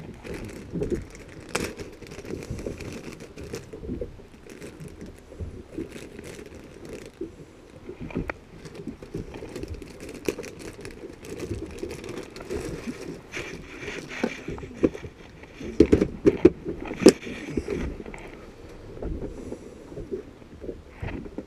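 Irregular knocks, clicks and scrapes of gear being handled aboard a small fishing boat, over a steady low wash of wind and water; a cluster of louder knocks comes about three-quarters of the way in.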